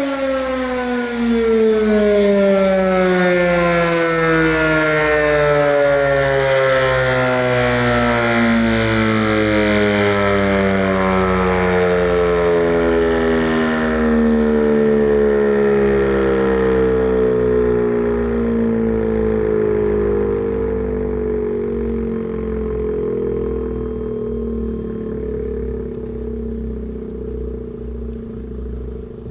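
ASC RM-127 rotating outdoor warning siren winding down after its steady Alert signal. Its loud wail slides steadily lower in pitch and slowly fades as the rotor coasts to a stop.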